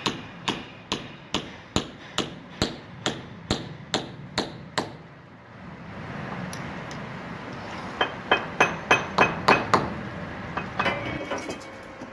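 Hand hammer striking metal against a concrete slab: a steady run of blows about two a second, then, after a pause of a few seconds, a quicker run of sharper blows about three or four a second, followed by a few lighter taps.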